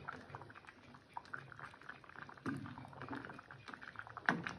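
A pot of fish stew in coconut milk boiling, with a steady crackle of small bubbling pops as a ladle is stirred through it; a sharper knock about four seconds in.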